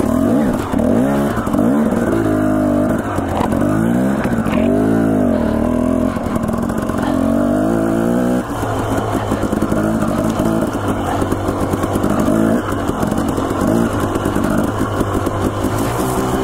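Dirt bike engine being ridden, its pitch rising and falling again and again as the throttle is worked. About halfway through it changes suddenly to a steadier, more even run.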